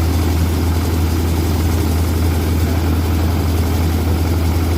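Power rice thresher running with a steady low drone that holds even throughout.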